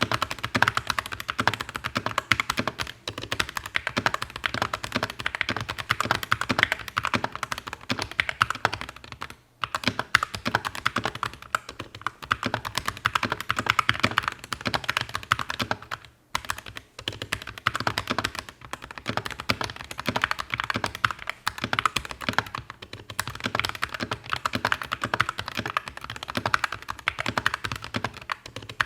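Steady typing on a custom-built mechanical keyboard, a GK61 rebuilt with aftermarket parts: a dense run of keystroke clacks, briefly broken twice, about a third of the way in and just past halfway.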